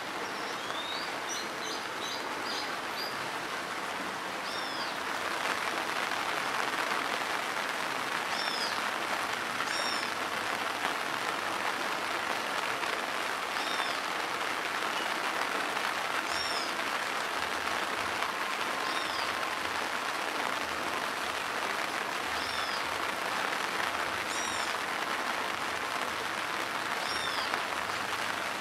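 Steady rain falling on a wet dirt road and the vegetation around it, a continuous hiss that grows a little louder about five seconds in. Above it a bird repeats a short, high, arched call every two to three seconds, with a quick run of chirps near the start.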